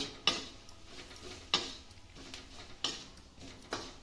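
Metal spatula scraping and knocking against a kadhai while stirring onions and spices frying on low heat: four sharp strokes, a second or so apart.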